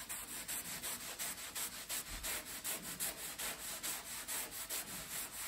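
Cloth rubbing back and forth over a wooden butcher-block countertop, wiping on a clear protective finish, in a quick, steady rhythm of strokes.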